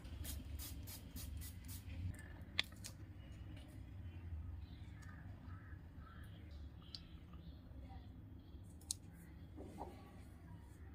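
Faint scattered clicks and light handling noises from a face-mist spray bottle and a nose strip being peeled and pressed on, over a low steady hum. The clicks come thickest in the first few seconds, with one sharper tick a little after two seconds in and another near the end.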